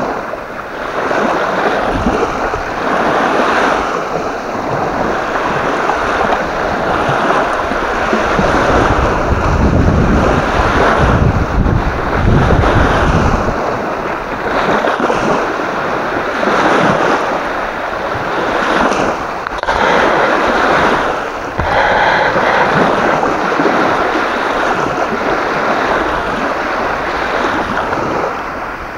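Strong gusty wind blowing over the microphone, with waves washing at the shore underneath. The wind buffets hardest about ten to fourteen seconds in.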